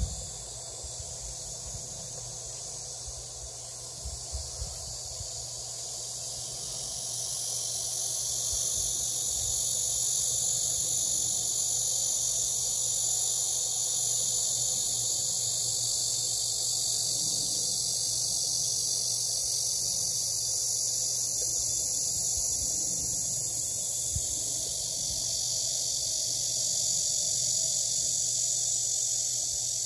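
Insect chorus, a steady high buzz that grows louder about seven seconds in and then holds.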